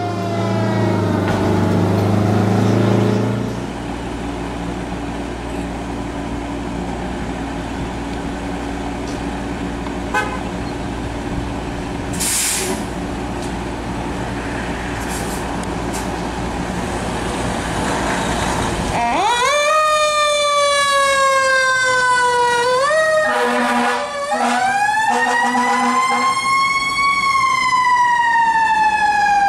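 Fire engine responding: its diesel engine runs steadily, with a brief hiss partway through. Then its siren winds up sharply and wails, gliding slowly up and down, with short air-horn blasts in the middle of the wail.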